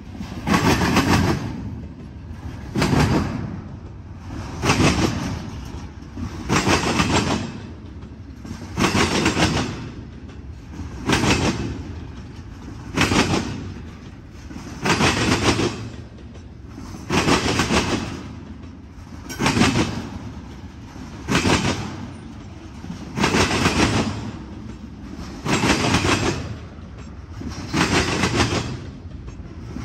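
Double-stack intermodal freight train passing close by: a steady rumble of wheels on rail, with a loud clickety-clack burst about every two seconds as each car's wheel sets go by.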